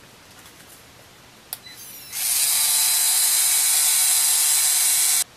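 3Doodler 3D pen's filament-drive motor and gears running steadily and loudly for about three seconds as it feeds hot plastic to weld a joint, cutting off abruptly; a single click comes just before it starts.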